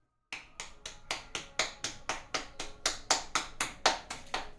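Palms slapping a ball of maize-flour roti dough, patting it out by hand into a flatbread: a steady run of quick pats, about four a second.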